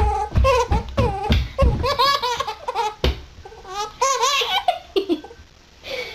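A baby laughing hard in rapid runs of short bursts, with a brief lull about five seconds in.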